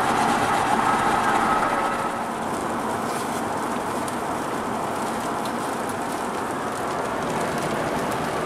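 Steady road and engine noise heard inside the cabin of a vehicle driving at highway speed. It drops a little in level about two seconds in.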